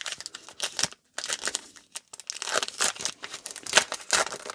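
Crinkly wrapper of a baseball card pack being torn open and crumpled: an irregular run of sharp crackles and rips.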